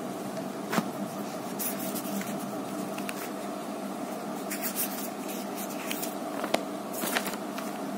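Notebook paper being turned and handled: a few short rustles and taps over a steady hum.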